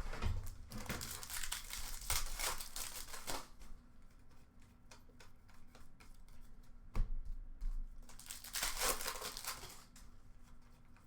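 Foil hockey card packs being torn open and crinkled, with cards shuffled and flicked through by hand. The rustling is heaviest in the first few seconds and comes again in a burst past the halfway mark.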